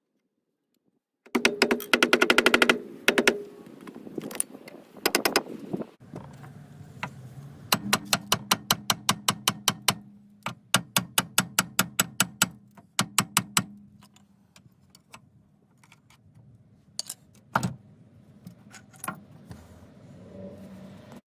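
Tools working on a car's wheel hub: bursts of rapid sharp metallic clicks, several a second, starting and stopping in runs.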